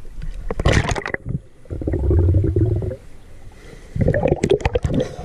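River water splashing and gurgling around the microphone as it goes below the surface. The sound turns to a muffled low rumble while submerged, with a second burst of splashing near the end.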